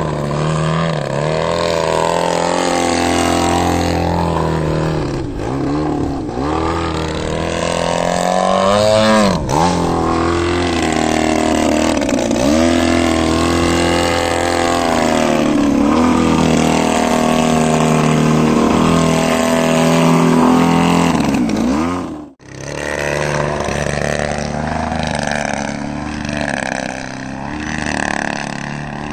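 GP123 engine of a large RC aerobatic plane running hard in flight, its pitch swinging up and down again and again as the throttle changes and the plane passes and hovers. The sound drops out abruptly for a moment about three-quarters of the way through.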